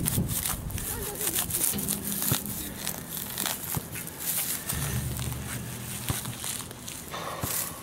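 A digging knife cutting and prying a plug of grassy turf, with roots tearing and soil crackling in many small clicks. Later, gloved hands rake loose dirt out of the hole.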